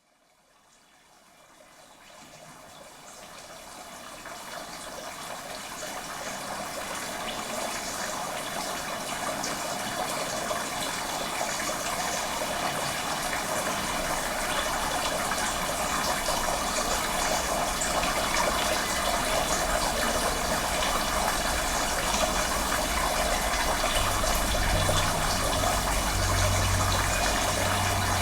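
Running water, an even rushing sound that fades in slowly from silence over the first several seconds and then holds steady. A low hum joins in about 24 seconds in.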